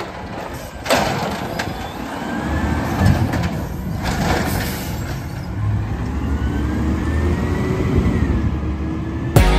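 Automated side-loader garbage truck: the lifting arm sets an emptied cart down with a sharp knock about a second in, a few clunks and a short air hiss follow, then the truck's engine revs up, rising in pitch, as the truck pulls away. Music starts just before the end.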